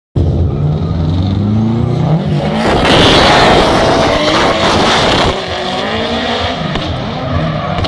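Drift cars' engines revving, rising and falling in pitch as they slide, with a louder rush of tyre screech from about two and a half seconds in until a little past five seconds.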